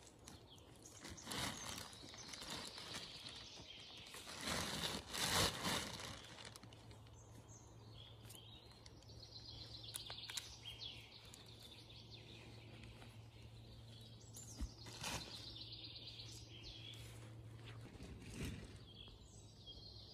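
Small birds singing and chirping, over bursts of rustling and scraping as dry pine needles and forest litter are raked up by gloved hands. The handling noise is loudest about five seconds in.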